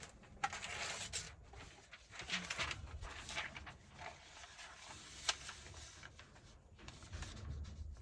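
Paper and crafting materials being handled: irregular rustling, with a sharp click about half a second in and another about five seconds in, over a low rumble.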